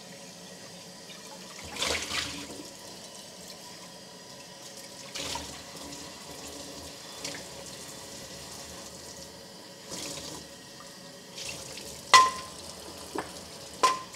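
Kitchen tap running steadily into a sink, with several clinks and knocks now and then; the loudest, about twelve seconds in, rings briefly.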